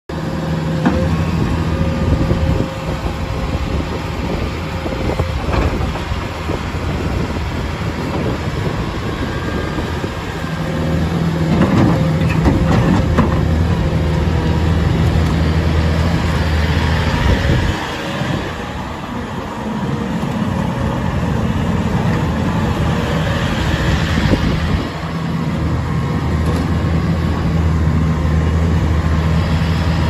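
Bobcat T770 compact track loader's 92 hp Doosan diesel running as the machine drives and turns on rubber tracks, with a steady low engine hum that grows louder about eleven seconds in and dips briefly twice later. A few sharp knocks come in the first dozen seconds.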